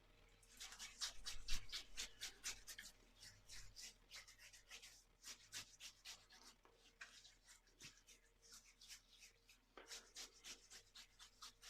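Faint rubbing and small scratchy clicks from hands handling shaving gear. They come in a quick flurry for the first few seconds, then thin out to scattered ticks.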